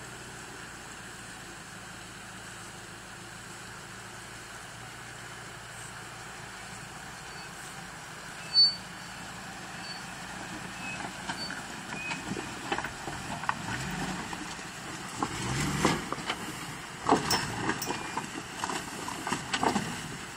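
Off-road vehicle engine running steadily at low revs, with a sharp click about nine seconds in. In the second half the engine rises in pitch under load, amid irregular knocks and crunches from the vehicle working over rough ground.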